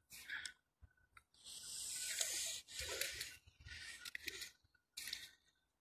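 Faint footsteps crunching in fresh snow: a few short irregular crunches, with one longer drawn-out crunch about a second and a half in.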